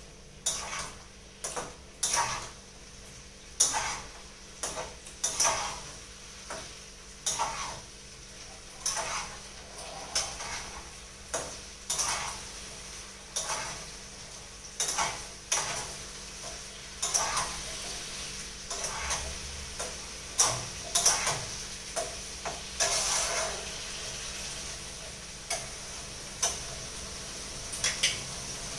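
Vegetables and soya chunks being stirred into masala in a kadai: the stirring utensil scrapes and knocks against the pan about once a second, over a faint steady sizzle.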